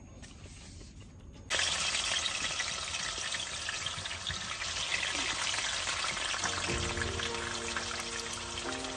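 Pork spare ribs going into hot oil in a wok and sizzling hard, starting suddenly about a second and a half in and holding steady. Background music with held notes comes in near the end.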